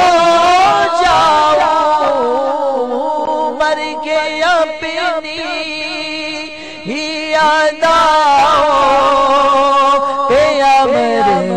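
A man singing an Urdu Sufi devotional kalam into a microphone, drawing out long, wavering melismatic notes. He sings more softly in the middle of the passage and louder again near the end.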